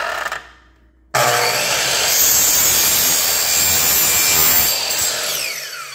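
Metabo HPT C10FCH2 10-inch compound miter saw starting suddenly about a second in and cutting through thin PVC T-trim. Near the end the motor winds down with a falling whine.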